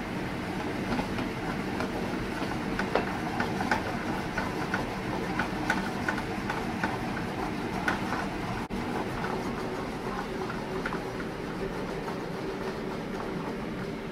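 A pan of butter, mushrooms and rhubarb sauce with cream just poured in, sizzling and bubbling on a gas burner with irregular small pops and crackles, over a steady low hum.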